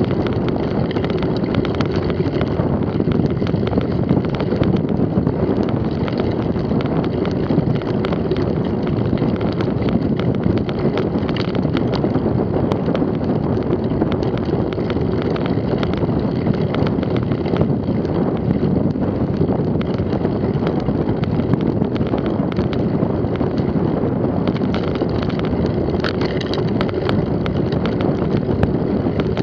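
Steady wind rush on the microphone of a camera riding on a mountain bike, with the knobbly tyres rolling over a rough, muddy dirt track and many small rattling clicks from the bike over bumps.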